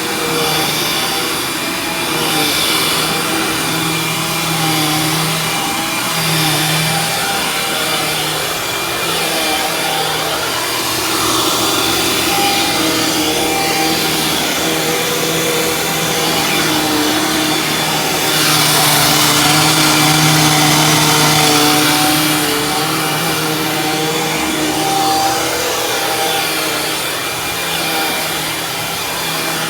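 Dirt Devil Ultra Vision Turbo upright vacuum cleaner running, a steady motor drone whose pitch wavers slightly. It gets louder for a few seconds about two-thirds of the way through.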